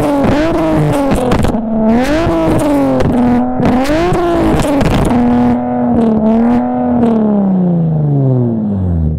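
Infiniti G37 sedan's 3.7-litre V6, revved while parked, through a SOHO 3-inch single-exit exhaust with resonated test pipes. Several quick rev blips rise and fall, one rev is held a little past the middle, and near the end the revs fall back toward idle.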